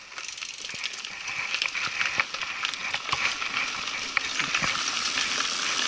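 Mountain bike tyres rolling over a dry, leaf-strewn dirt trail, a steady crunching hiss broken by many sharp clicks and rattles from the bike, growing louder.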